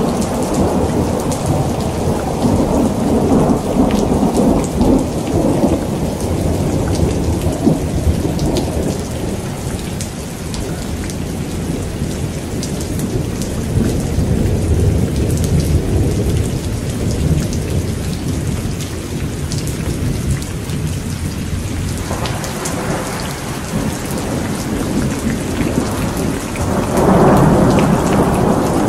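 Thunderstorm: long rolling thunder that rumbles almost without a break, rising and falling, over the patter of rain. The rumble swells louder again near the end.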